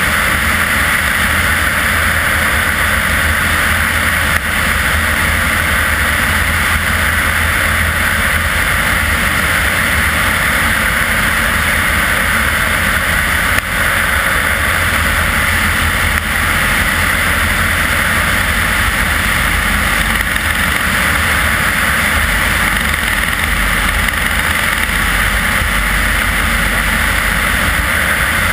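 Single-engine propeller aircraft in cruise flight, heard from a camera mounted outside on the wing: a steady engine and propeller drone mixed with rushing airflow.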